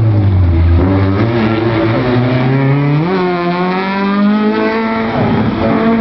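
A small hatchback race car's engine revving through a tight slalom course. The revs fall sharply at the start as the driver lifts off, stay low briefly, then climb again about three seconds in as it accelerates. They dip once more near the end.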